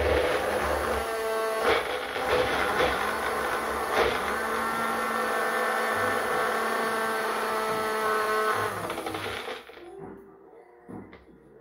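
Personal bullet-style blender running at full speed, pressed down on its base, grinding cabbage chutney ingredients into a paste: a dense, steady motor whine. It cuts off about two seconds before the end.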